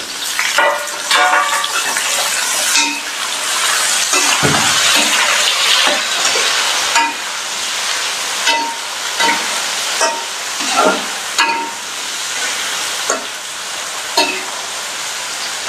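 Shallots, garlic and chilies sizzling in hot oil in a metal wok, with a metal spatula stirring and scraping against the pan in short, repeated strokes.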